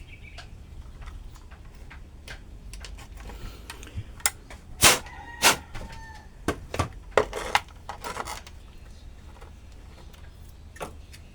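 A run of sharp clicks and knocks from objects being handled and set down, bunched between about four and eight seconds in, the loudest near the middle and one with a short metallic ring; a low steady hum underneath.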